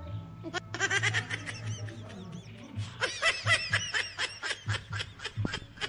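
Rapid snickering laughter, a long run of quick ha-ha pulses, over background music.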